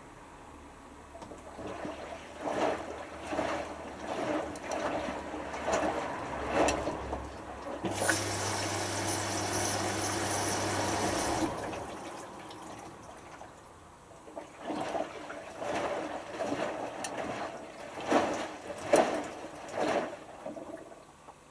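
Hotpoint HF8B593 washing machine in its rinse: the drum turns and water sloshes in uneven swells. From about 8 to 11.5 seconds a steady rush of water with a low hum takes over, then the sloshing resumes.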